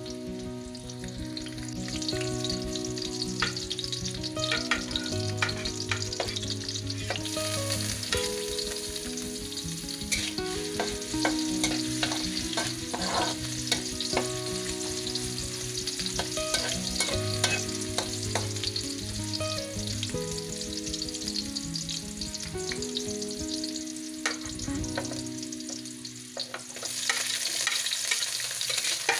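Chopped garlic and ginger sizzling in hot oil in a wok, with a spatula scraping and clicking against the pan as it stirs. Near the end the sizzle gets louder as chopped red onion goes in.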